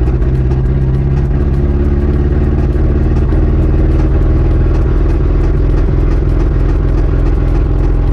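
1986 Ford Ranger's 2.3-litre four-cylinder engine running steadily while driving, loud and close, with a fast even pulse. The engine is down on power and prone to backfiring, which the owner puts down to burnt valves from a clogged fuel filter.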